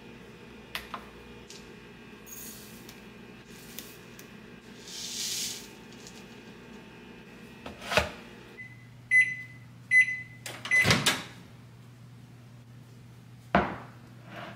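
A microwave oven beeps three times, about a second apart, among clunks of its door and of a ceramic bowl being lifted off a digital kitchen scale and set down on a wooden counter. A brief rustle comes about five seconds in, over a low steady kitchen hum.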